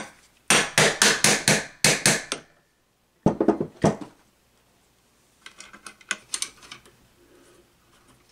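Hammer blows on a socket set over an electric motor's shaft, seating the end bell during reassembly. A quick run of about eight sharp metallic strikes comes first, then three more about a second later. Lighter clicks and knocks follow as the motor is handled.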